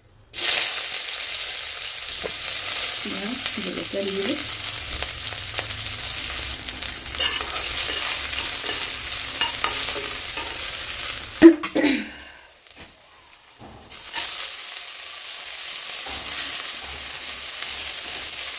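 Onions and chillies dropped into hot oil with fenugreek seeds in a wok, sizzling steadily as they fry. About eleven seconds in there is a sharp knock and clatter, the loudest moment. The sizzle dies down briefly, then a fresh sizzle starts as chopped khutura (amaranth) greens go into the pan.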